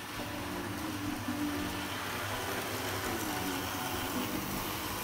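Tri-ang Hornby model electric locomotives running on 00-scale track: a steady electric motor hum with the rumble of wheels on rail.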